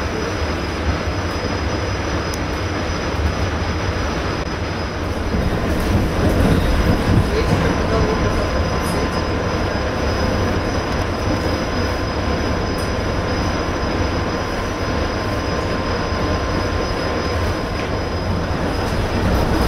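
Inside the carriage of an ED4M electric suburban train running at speed: steady rumble of wheels on rail with a thin high whine over it, growing a little louder about six seconds in.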